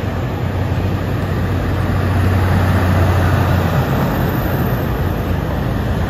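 Road traffic with a heavy container truck's engine droning as it passes, the low drone loudest in the middle and easing off after about four seconds.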